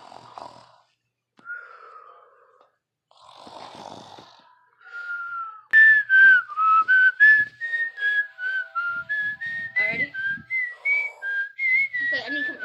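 A person whistling a tune: a quick run of short notes stepping up and down, starting about six seconds in after some faint rustling. There is a brief knock partway through.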